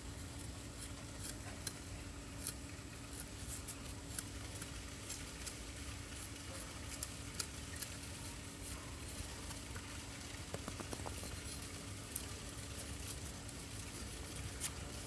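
Faint scattered clicks and scraping as a knife pares the charred outer skin off a bamboo tube of rice cooked in the fire, over a steady low hum.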